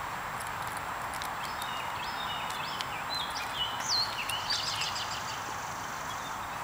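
A small bird singing a run of short whistled notes that slide up and down in pitch, loudest between about three and five seconds in, over a steady outdoor hiss.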